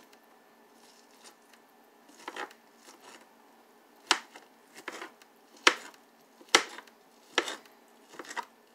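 Kitchen knife chopping roasted chicken breast into bite-sized pieces, the blade knocking sharply and irregularly on the cutting surface, several times from about two seconds in.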